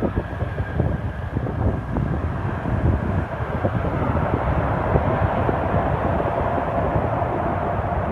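Jet airliner engine noise growing louder about halfway through, with strong wind buffeting the microphone throughout.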